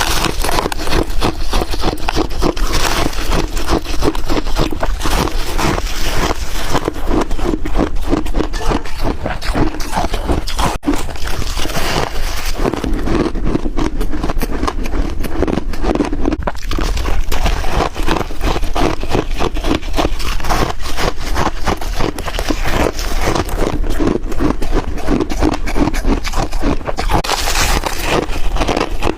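Freezer frost ice being chewed: a rapid, continuous run of crisp crunches.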